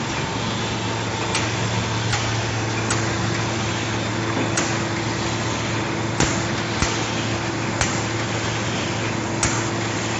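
VOKEDA VKD660A automatic UV coating machine running with a steady hum. About eight sharp clicks come at irregular intervals over the hum.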